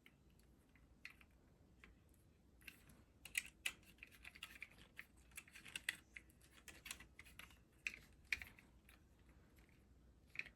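Faint, irregular clicks and taps of small plastic parts being handled and fitted together by hand, thickest from about three to nine seconds in, with one more click near the end.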